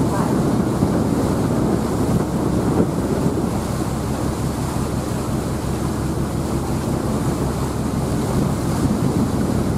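Wind buffeting the microphone on the open deck of a moving ferry: a steady, low rushing rumble with no let-up.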